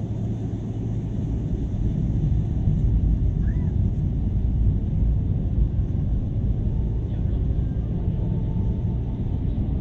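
Cabin rumble inside a Boeing 777-300ER taxiing: a steady low drone of its GE90 engines at taxi power, mixed with the wheels rolling over the taxiway concrete, swelling slightly in the middle.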